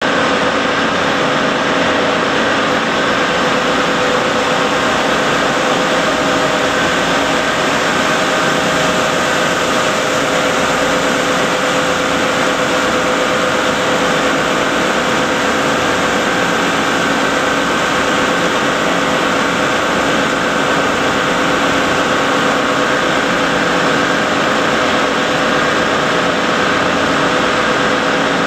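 Steady machinery noise of an automated paint line's dip-tank hall: an even, unchanging hum with a few steady tones over it.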